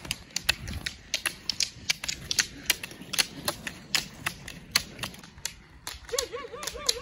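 Roller-ski pole tips clicking on asphalt as several skate-skiers pole past, an irregular run of sharp clicks several times a second.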